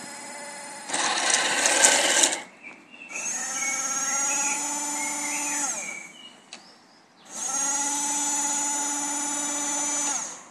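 A Henglong 1:16 Tiger I RC tank's electric drive motors and gearboxes whining, mixed with its sound unit's engine noise, in two steady driving runs; the first ends with a falling pitch as the tank slows. A loud rasping burst comes about a second in.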